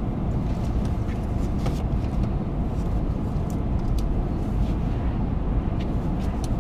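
Car driving at highway speed: a steady low rumble of road, tyre and engine noise.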